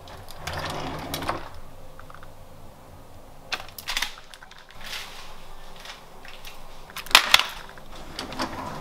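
A wooden kitchen drawer is pulled open, then small objects such as scissors and pens clatter as a hand rummages through the junk drawer. There are scattered clicks, the loudest a quick pair a little after seven seconds in.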